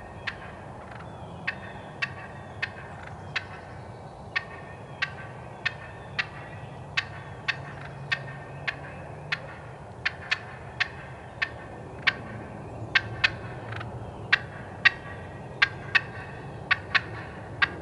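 Wild turkey hen cutting: short, sharp clucks popped off irregularly, often two or three in quick succession, about thirty in all. It is the aggressive call of an excited hen looking for an unfamiliar hen in her area.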